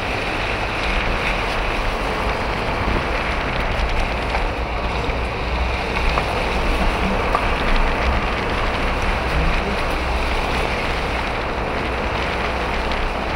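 A car driving on a rough mountain road, heard from inside the cabin: a steady mix of engine, tyre and wind noise at an even level.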